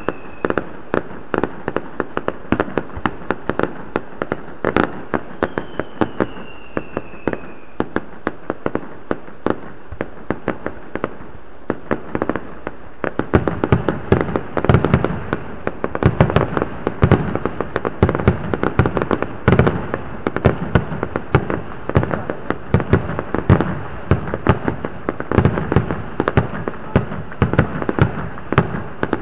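Fireworks display: a rapid, continuous series of bangs and crackles, growing denser and louder about twelve seconds in.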